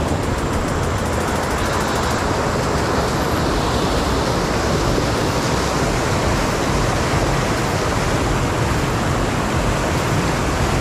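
Muddy river water rushing over rocky rapids: a steady, unbroken rush of white water.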